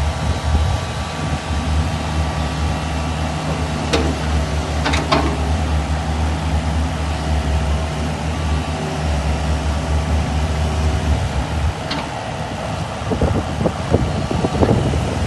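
Kubota KX71-3 compact excavator's diesel engine running steadily, with a few sharp clicks now and then and a rougher stretch near the end.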